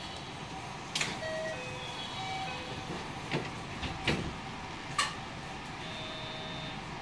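Inside a JR 207 series 1000 electric train: a steady hum with no motor whine, short electronic tones at several pitches like a chime melody, and four sharp clicks.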